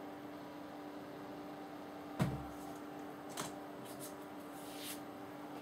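Steady low electrical hum with a few scattered knocks and clicks from handling things. The loudest is a dull thump about two seconds in.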